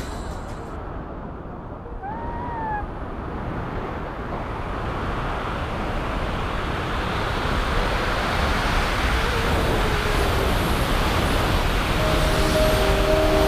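Wind rushing over the camera microphone during a tandem paraglider flight, growing louder through the stretch. A brief gliding tone sounds about two seconds in, and steady music tones come in near the end.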